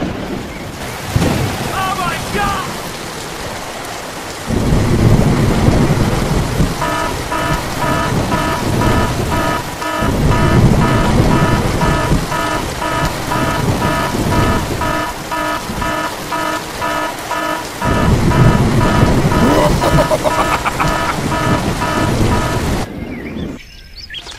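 Thunderstorm: steady heavy rain with three long rolls of thunder, about five, ten and eighteen seconds in. A fast, evenly repeating pitched pulse runs under the rain from about seven seconds in until the rain stops near the end.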